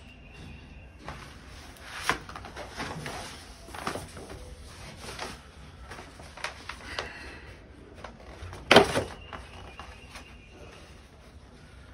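Irregular rustles and scrapes of a plastic sticker sheet being handled and cut, with the loudest rustle about three-quarters of the way through.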